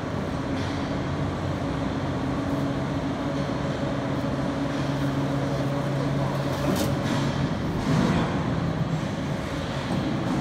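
A steady mechanical hum with a few low tones, which drops out about seven seconds in. Rustling and soft thumps of heavy bags being handled and stacked on a steel scaffold plank come through, most clearly around seven to eight seconds in.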